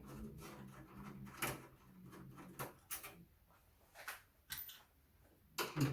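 Scattered metallic clicks and knocks, about half a dozen spread over several seconds, as a Compaq Portable's mainboard on its steel mounting plate is worked loose and pulled out of the chassis.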